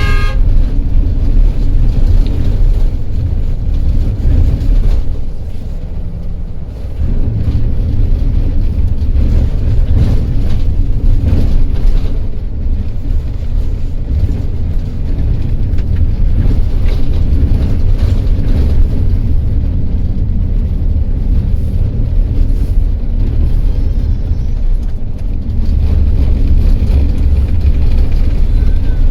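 Intercity coach on the move on a rough, damaged highway: a steady low rumble of engine and tyres with scattered knocks and rattles. A short horn-like toot sounds at the very start.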